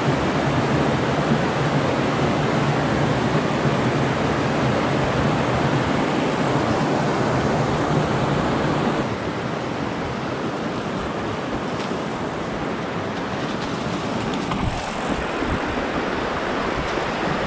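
Steady wind noise on the microphone, shifting and dropping a little about halfway through.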